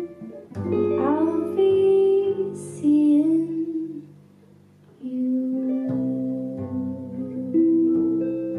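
Small jazz group of electric guitar, double bass and a woman's voice: sung, wavering notes over guitar chords and plucked bass, a short lull about four seconds in, then the music resumes and settles on a long held note.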